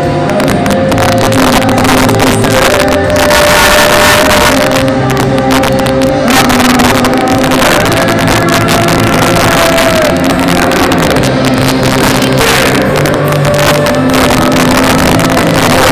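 A live reggae band, with electric guitar, drums and vocals, playing loudly on stage, heard from within the audience.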